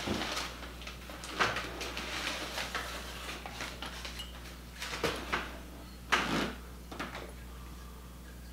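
Pottery and glassware being handled in a cardboard box: a few knocks and clinks as pieces are lifted out and set down, the sharpest about six seconds in.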